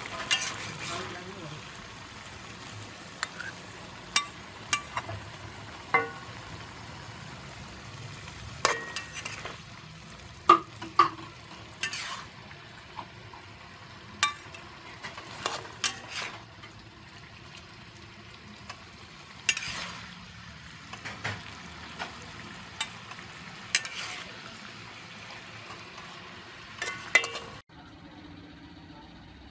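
Pork and greens sizzling in a wok while a metal spatula scrapes and clanks against the pan at irregular intervals. The sizzle drops away abruptly near the end.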